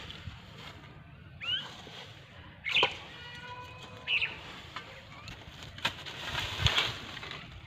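A spade scraping and scooping into a heap of dry brush, twigs and rubbish, with a dull thud near the end. Short rising bird chirps come a few times.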